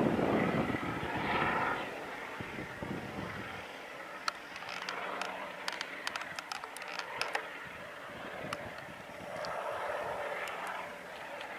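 Airbus EC120B Colibri helicopter flying overhead after take-off, its Turbomeca Arrius 2F turboshaft and rotor sound loud at first, then fading about three seconds in as it climbs away. A scatter of sharp clicks comes in the middle.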